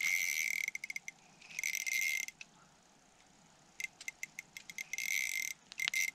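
Small ice-fishing reel ratcheting in spurts as a hooked trout is played, several rapid buzzing runs of clicks separated by short pauses and single ticks.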